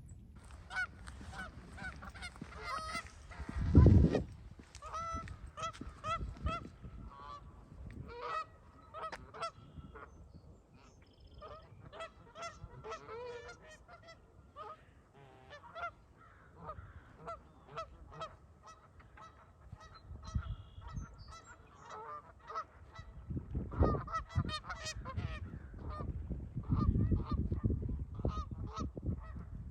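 Many geese honking, short calls repeated over and over from several birds. A loud low rumble comes about four seconds in and again near the end.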